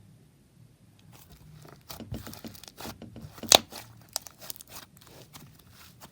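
Soft slime being stretched and squished by hand, giving a run of sticky clicks and pops that starts about a second in, with one loud pop about halfway through.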